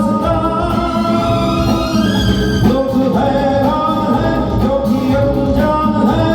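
Music: a melody of held notes moving in steps over a steady, dense accompaniment, with singing.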